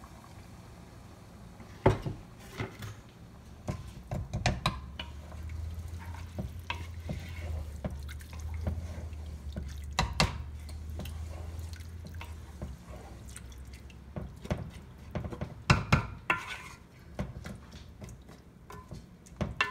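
Wooden spoon stirring stock and rice in an aluminium pot, liquid sloshing, with sharp knocks of the spoon against the pot several times. A low hum runs for several seconds in the middle.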